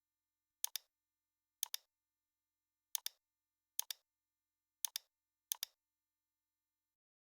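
Computer mouse clicking: six quick pairs of clicks, each pair two sharp clicks a split second apart, spaced about a second apart.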